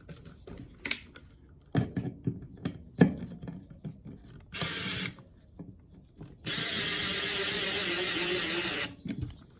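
Electric screwdriver driving a slotted screw into a board. A few light clicks of the bit being handled come first, then a short run of about half a second, then a steady run of about two and a half seconds with a high whine.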